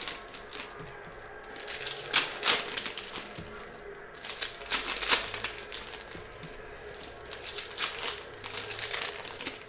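Foil trading-card pack wrappers crinkling and cards being handled and laid on a stack by hand, in several short crackly bursts.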